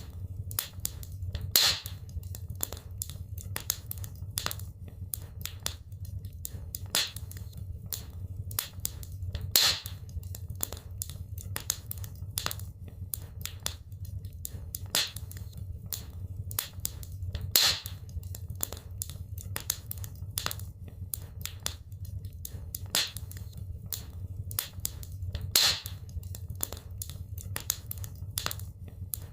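Wood fire crackling in a fireplace: many irregular snaps and pops over a low steady rumble, with a louder pop about every eight seconds.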